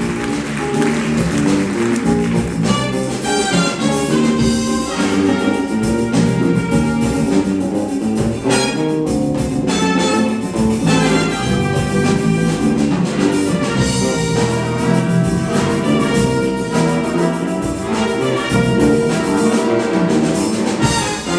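Jazz ensemble playing a funk tune live: trumpets, saxophones and trombones in punchy chord hits over electric bass, guitars, drum kit and conga drums.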